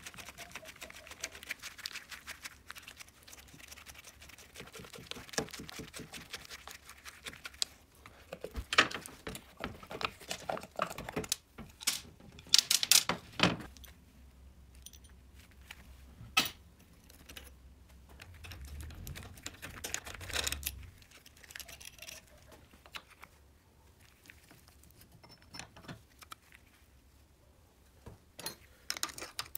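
Metal parts and hand tools clicking, clinking and knocking as an S-57 moped engine is taken apart: the cylinder pried off the crankcase and clutch plates lifted out. The clicks come in irregular runs, with a few sharper knocks standing out.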